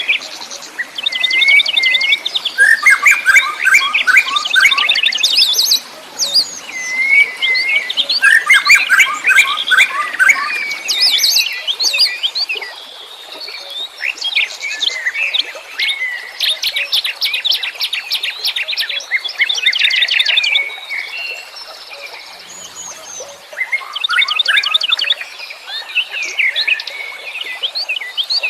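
Several wild songbirds singing together in fast trilled and chattering phrases that overlap, in bursts with short pauses and a quieter spell a little past the middle.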